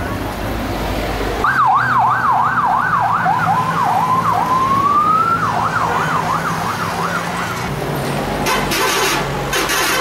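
Electronic siren sweeping quickly up and down, about two cycles a second, switching briefly to a slower rising wail midway and then back to the fast sweep, over road traffic noise. It stops about seven and a half seconds in.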